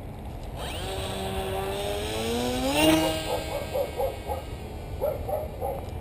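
The electric motor and propeller of a small radio-controlled plane whining up in pitch as it is throttled up at launch, loudest near three seconds. After that come two quick runs of short pitched pulses.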